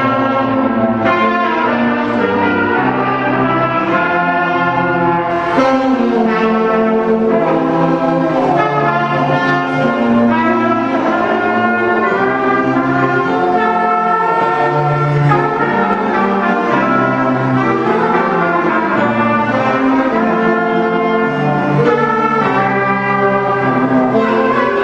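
A school orchestra of strings and brass playing the school anthem, moving through held notes about a second long in a steady, stately rhythm.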